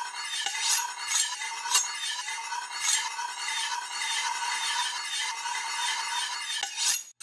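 Steel knife blade ringing and scraping: a steady high metallic ring, with sharp clinks at irregular intervals about once a second.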